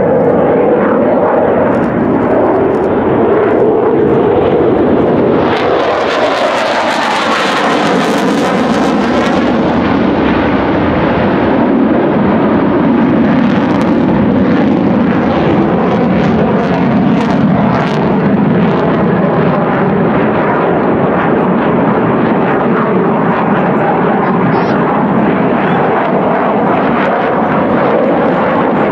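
A military fighter jet flying an aerobatic display, its jet engine noise continuous. The noise turns sharply brighter and hissier, with a sweeping, phasing whoosh, as the jet passes close about six to nine seconds in, then settles back to a steady rumble.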